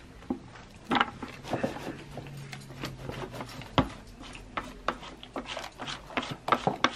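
Irregular knocks, taps and rustles of a plastic bucket and paper mold liners being handled while thick soap batter is poured into wooden loaf molds.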